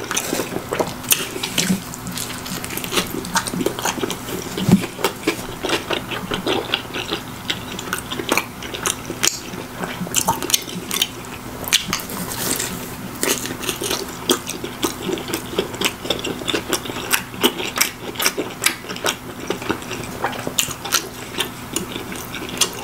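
A man biting and chewing a slice of pizza close to the microphone: a dense, continuous run of small mouth clicks and crust sounds. A faint low hum sits underneath.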